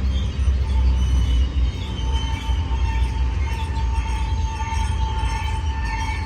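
Freight train rolling slowly toward a stop, its wheels and brakes squealing in a steady high tone with shifting higher squeals over a low rumble.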